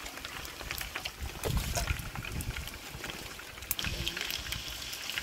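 Scattered crackles and pops of food frying in oil, with low rumbling bursts about one and a half and three and a half seconds in.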